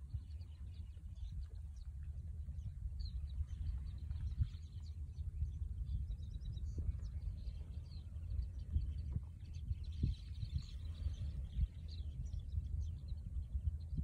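Wind buffeting the microphone in a steady, gusty low rumble, with many faint, short high calls from a flock of small shorebirds flying over the water.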